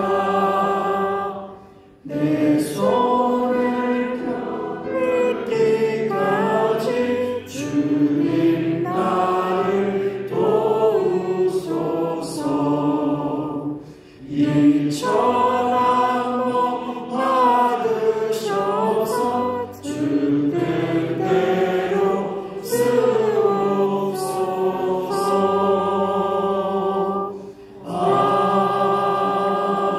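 Church congregation singing a hymn together in unison, with short pauses between lines.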